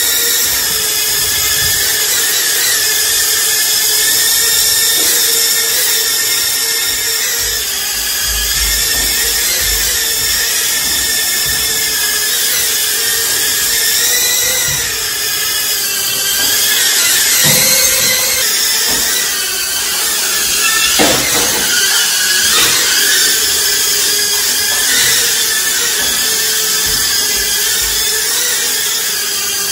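Small toy quadcopter drone's electric motors and propellers whining at a high pitch, the pitch wavering up and down slightly as it flies.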